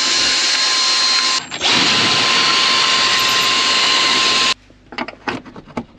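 Cordless drill with a twist bit drilling into wooden cabin panelling through a metal wall bracket, running at a steady high whine. It stops for a moment about a second and a half in, runs again, and stops at about four and a half seconds, followed by a few light clicks and knocks.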